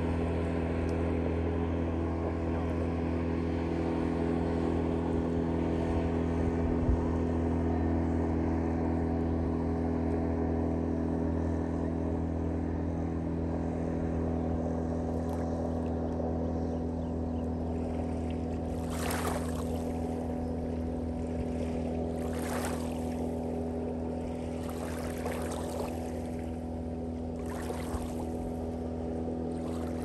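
Small boat's outboard motor running steadily at speed as the boat passes by, a steady drone. In the second half, four short splashes of water stand out over it.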